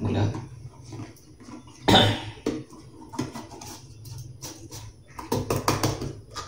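Hands opening and handling a small cardboard carton of processed cheese on a wooden chopping board: rustling card and light scrapes. There is a sharp knock about two seconds in and a quick run of clicks near the end.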